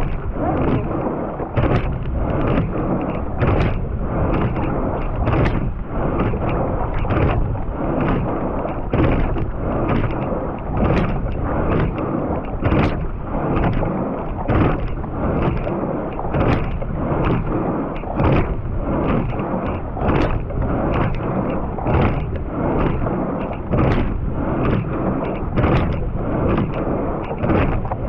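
Sculling oar knocking in the oarlock (gate) of a quad scull at close range, a sharp clunk about every two seconds at a racing rate of 32 strokes a minute, with lighter clicks between. Under it runs a steady rush of water along the hull and wind.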